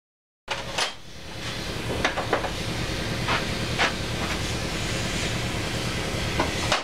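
A steady workshop hum starts after half a second of silence. Over it come several sharp clicks and knocks as tools and parts are handled on a metal workbench.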